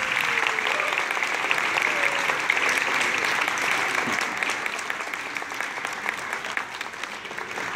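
Audience applauding, dense clapping that eases off somewhat over the last few seconds.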